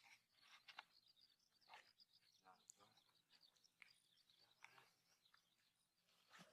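Near silence, with faint scattered clicks and rustles and a faint high twittering hum.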